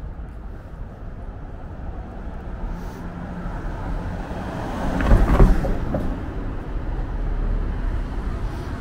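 Street traffic: a motor vehicle passes close by, growing louder to a peak about five seconds in, over a steady low traffic rumble.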